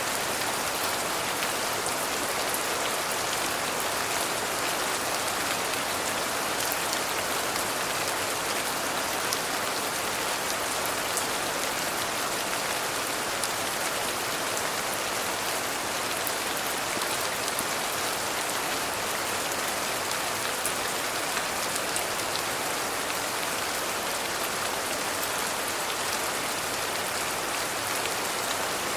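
Steady rain falling, an even hiss of rainfall with scattered small ticks of individual drops striking a surface.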